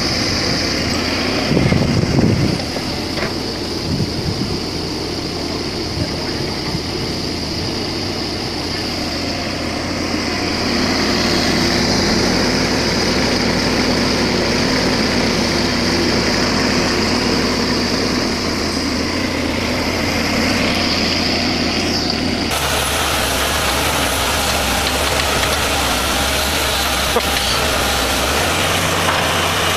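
Mini excavator's engine running as the operator works the boom and bucket, with a loud thump about two seconds in. The sound changes abruptly near the end to a Caterpillar tracked excavator's engine running.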